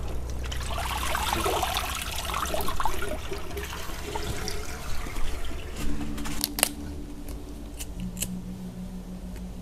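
Hands swishing and splashing leafy greens in a basin of water for about the first five seconds. After that, a few sharp crackles from dry leaves being handled.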